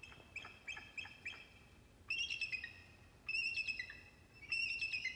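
Bald eagle calling: a run of short, high, falling chirps at about three a second, then three longer, high chittering calls about a second apart.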